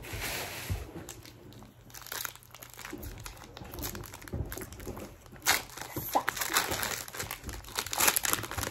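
Foil trading-card pack wrappers being torn open and handled, crinkling irregularly, louder in the second half.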